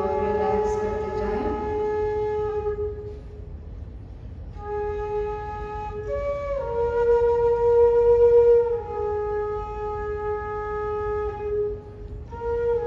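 Slow flute music with long held notes: a note fades out about three seconds in, then the melody resumes and steps up and then back down in pitch, over a low steady hum.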